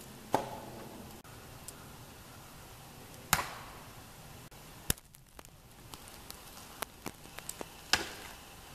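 Wood being chopped by hand: three heavy blows into a log, spaced about three to four and a half seconds apart, with a lighter sharp knock and a few faint clicks between the second and third.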